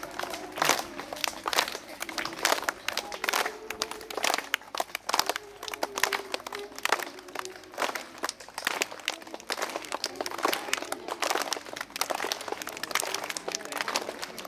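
A group of children clapping their hands, many sharp claps coming thick and unevenly, with faint voices beneath.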